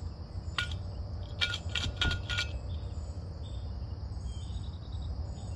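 Ice clinking inside an insulated bottle as it is shaken: about half a dozen sharp, ringing clinks in the first two and a half seconds. Crickets chirr steadily over a low hum throughout.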